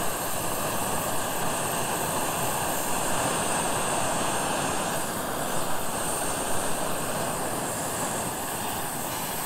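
Propane (LPG) camping burner running steadily under a titanium pot of water, a continuous even hiss.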